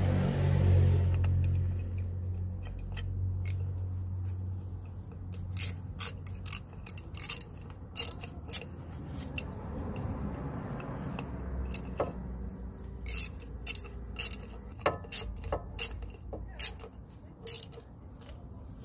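Socket ratchet on an extension tightening the retaining bolt of a newly fitted ABS wheel-speed sensor: irregular runs of sharp clicks as the handle is swung back and forth, until the bolt is tight. A low rumble is strongest in the first few seconds and then fades.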